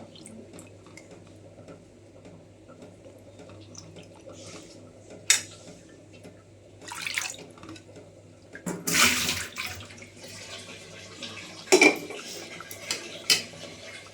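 Kitchen work: water splashing, loudest about nine seconds in, amid clicks and clatters of pots and utensils, over a steady low hum.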